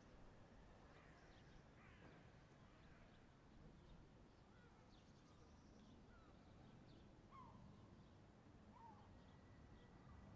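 Near silence: faint outdoor ambience with a low steady background and a few scattered short bird chirps.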